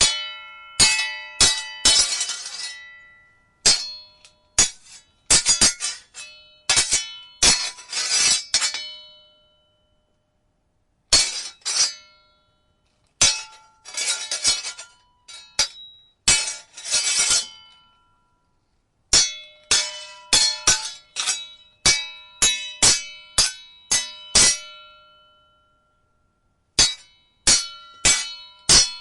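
Steel swords clashing: quick flurries of sharp metal-on-metal strikes, each ringing briefly, separated by short pauses of a second or two.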